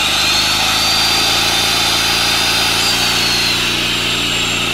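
Makita corded circular saw spinning up to a high whine, running free without cutting, then winding down with a falling whine over the last second or two. Under it, the portable inverter generator powering the saw runs steadily on charcoal gas from a gasifier.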